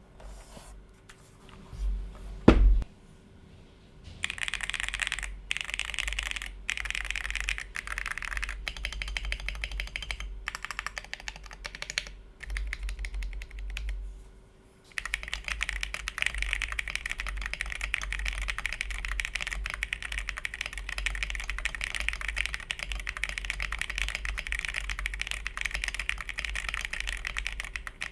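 Typing on a Monsgeek M1W V3 mechanical keyboard fitted with Akko Creamy Blue V3 Pro tactile switches. There is one loud knock about two and a half seconds in, then bursts of keystrokes broken by short pauses. About halfway through it turns into steady, fast continuous typing.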